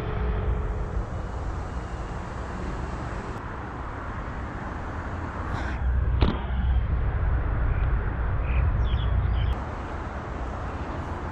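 Steady low rumble of road traffic noise, with a single sharp click about six seconds in.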